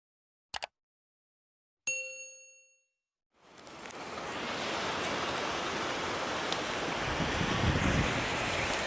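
A short double click, then a single ding that rings out for about a second. After a moment of silence, ocean surf and wind on the microphone fade in and hold steady, with a heavier surge of waves near the end.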